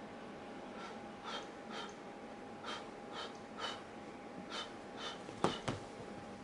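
Soft rhythmic pats on a cat's lower back at the base of its tail, about two a second, with a sharper click near the end.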